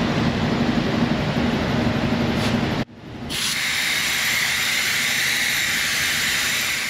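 Shop-air vacuum brake bleeder hissing steadily as it draws brake fluid out through a caliper's bleeder screw. The hiss breaks off abruptly for a moment near the three-second mark, then resumes; in the first part a low hum runs under it.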